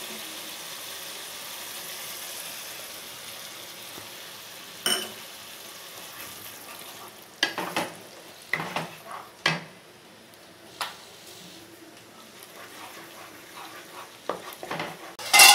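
Spice masala sizzling in hot mustard oil in a pan, then a spatula scraping and knocking against the pan as the masala is stirred. Right at the end, a loud metallic clang that rings on.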